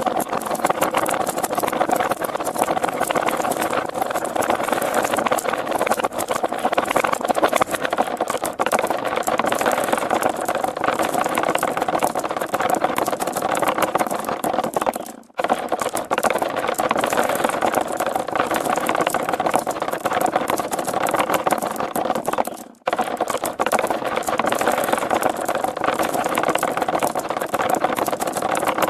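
Many marbles rolling and rattling together down a plastic marble-run track in a dense, continuous clatter, broken by two short gaps about 15 and 23 seconds in.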